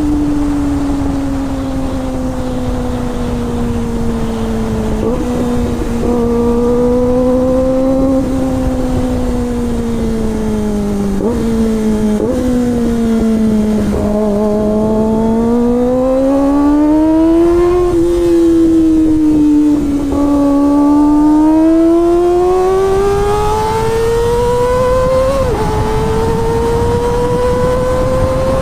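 Kawasaki ZX-25R's inline-four engine running at high revs while the bike is ridden. Its note rises and falls steadily and jumps in pitch several times as gears are changed.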